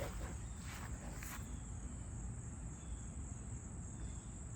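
Crickets chirring steadily at a high pitch in the background, with a low rumble and a few faint clicks in the first second or so.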